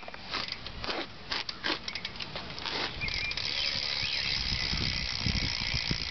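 Quando rear hub on a BMX bike clicking as the rear wheel is spun: separate clicks at first, then a fast steady ratchet buzz from about three seconds in.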